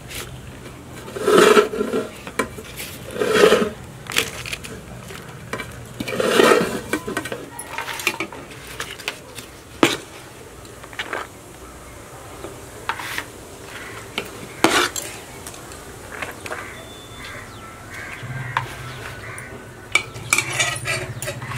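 Steel ladle and spoon scooping and scraping fried rice in a steel pot, with scattered metal clicks and knocks. The three loudest scrapes come about 1.5, 3.5 and 6.5 seconds in, and a cluster of clicks comes near the end.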